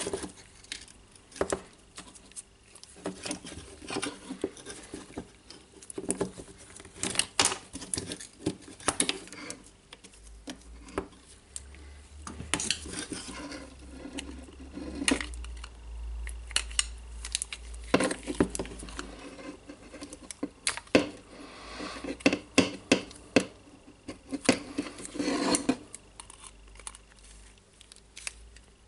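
Irregular small clicks, taps and scrapes of a steel screwdriver prying at the trigger switch inside the plastic housing of a cordless impact driver, with the housing knocking on the bench.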